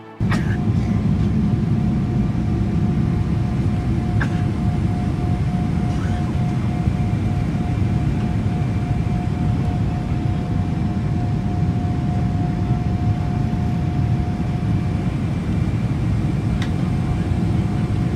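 Airliner cabin noise: the steady low rumble of jet engines and rushing air, with a thin steady whine over it and a few faint ticks.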